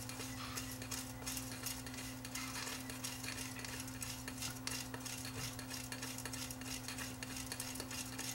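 Magnetic tape being pulled by hand through an open 8-track cartridge's reel: faint scratchy rustling with many small ticks of tape and plastic. A steady low hum lies underneath.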